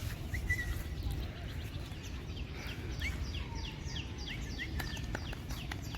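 Birds chirping: a quick run of short, high, falling chirps through the middle, over a steady low outdoor rumble.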